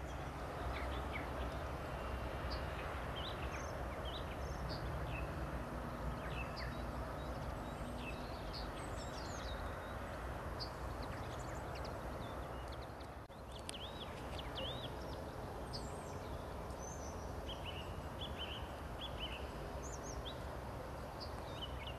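Small songbirds calling in many short, high chirps and twitters over a steady low outdoor rumble.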